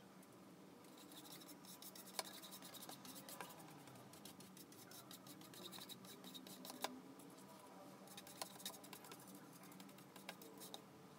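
Flat paintbrush dragging in short strokes across stretched canvas: a faint, dense scratching, with a few sharper ticks about two seconds in, near the middle and a little later.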